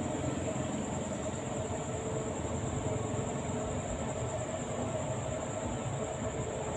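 Diesel locomotive of a standing train idling steadily: a low rumble with a constant hum. A thin, steady, high-pitched whine sits above it.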